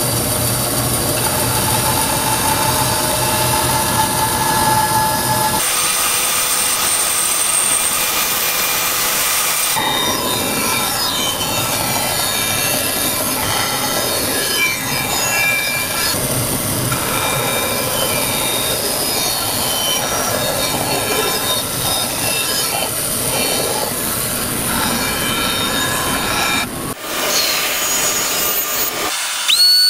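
Bandsaw running steadily, its blade resawing a black walnut board, with the tone of the cut shifting abruptly a few times.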